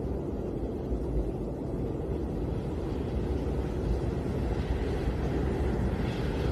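Snowstorm wind blowing as a steady, deep rushing noise, with a little more hiss near the end.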